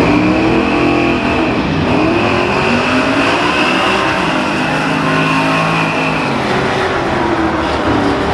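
Drag-racing Chevrolet Camaro and a second car accelerating hard down the drag strip at full throttle. The engine note climbs in pitch and drops back at each upshift.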